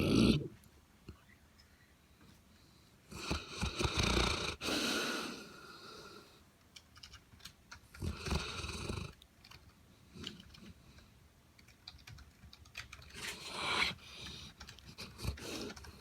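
St. Bernard snoring in her sleep: rough, drawn-out snores about every five seconds, with quieter breathing between.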